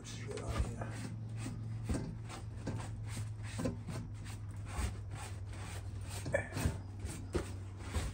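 Scrubbing grime off a surface by hand: a run of short, irregular rubbing strokes over a steady low hum.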